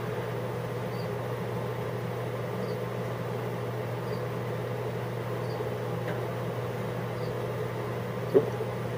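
Steady low mechanical hum with background hiss, and one brief short sound about eight seconds in.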